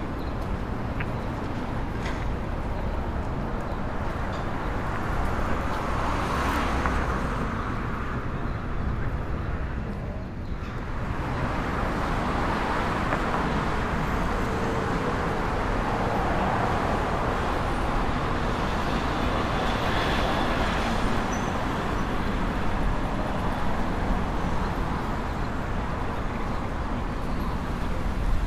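Street traffic ambience: a steady wash of passing cars with low engine rumble and tyre noise, swelling as vehicles go by about six seconds in and again from about twelve to twenty seconds.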